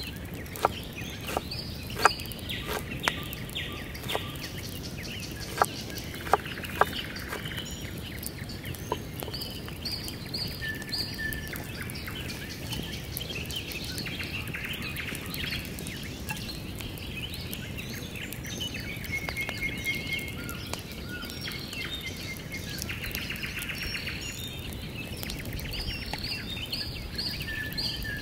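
A chef's knife chopping onion on a wooden cutting board, a handful of sharp knocks in the first seven seconds or so. Birds chirp and call throughout, the only sound after the chopping stops.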